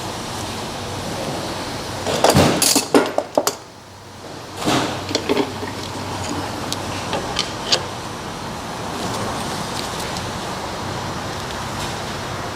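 Tools and metal suspension parts clinking and knocking during hands-on work on the rear suspension link, in two short clusters with a few lighter ticks after, over a steady background hiss.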